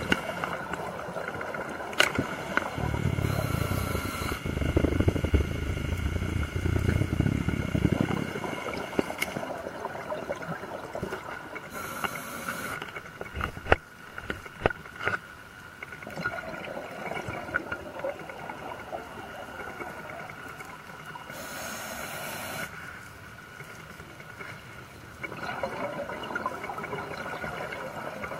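Scuba diver breathing through a regulator underwater: a short hiss on each inhalation about every nine seconds, with the low bubbling rumble of exhaled bubbles, loudest in the first quarter. A few sharp clicks stand out.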